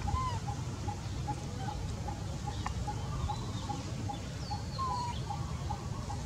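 Birds calling: one repeats a short low note evenly, about four times a second, while others give a few scattered curved chirps, over a steady low outdoor rumble.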